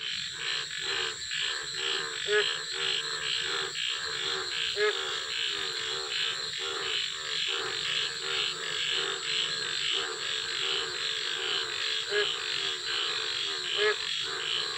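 A night chorus of frogs calling in quick, even pulses, several a second, over a steady high whine. Now and then a single louder call rises in pitch above the chorus.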